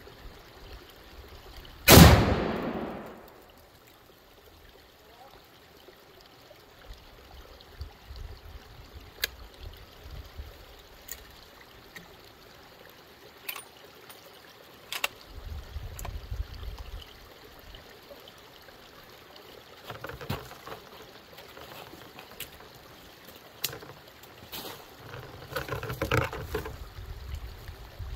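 A Tannerite charge on a beaver dam detonating about two seconds in: one very loud boom with a rumbling tail lasting about a second and a half. Afterwards come a few faint scattered clicks over the low trickle of running water.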